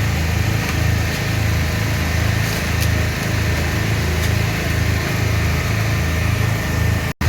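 An engine running steadily with a low, pulsing throb, its sound cutting out briefly near the end.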